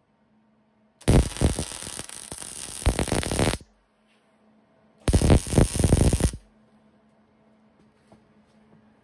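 MIG welder arc crackling on steel square tubing in two short welds: one of about two and a half seconds starting about a second in, then one of about a second. A faint steady hum sits between the welds.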